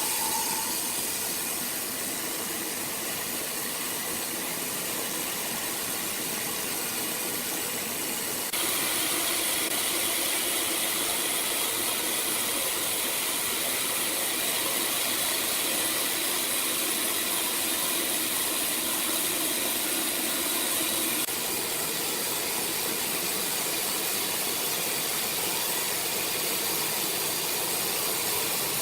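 Sawmill machinery running with a steady hissing noise. The level jumps up abruptly about 8 seconds in and drops a little about 21 seconds in.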